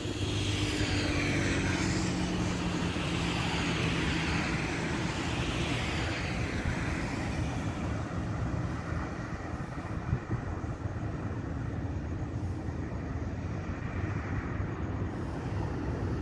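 Steady road traffic noise, with one vehicle passing in the first several seconds, its sound sweeping down in pitch, and another passing near the end.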